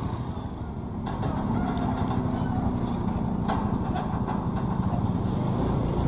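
Vehicle engines running steadily with a low rumble that grows a little louder about a second in.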